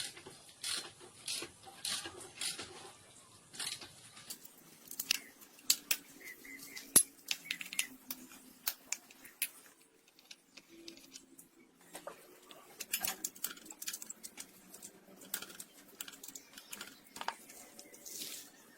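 Irregular sharp metallic clicks and taps of hand tools and engine parts being handled, with one louder click about seven seconds in.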